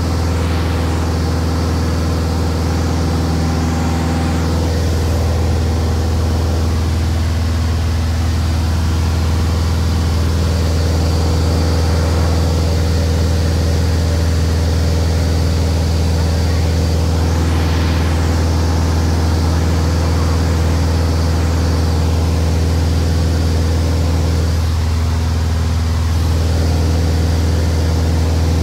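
Glasair I RG light aircraft's piston engine and propeller heard inside the small cockpit in cruise flight: a steady low drone with a strong unchanging hum.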